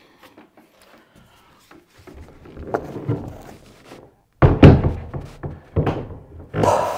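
Wooden Murphy bed frame being lifted and set onto its wall-bed hardware: shuffling and knocks, then a loud thunk about four and a half seconds in, followed by two smaller knocks.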